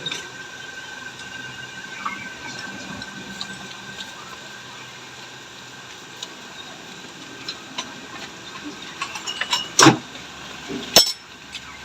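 Metal tools clinking and tapping on a motorcycle shock absorber under repair, over a steady background hiss, with two loud sharp knocks about a second apart near the end.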